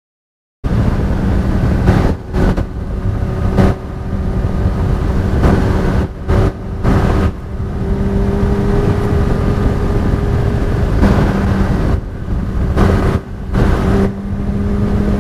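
Honda CBR600 F4i's inline-four engine running at a fairly steady pitch at road speed, under heavy wind rumble on the microphone. The sound cuts in abruptly about half a second in and dips briefly in level several times.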